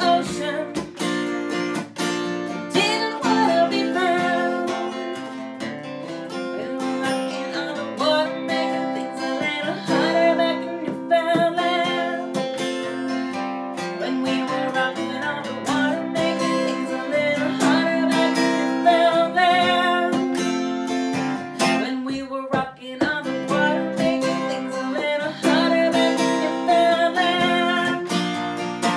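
A woman singing to a strummed acoustic guitar.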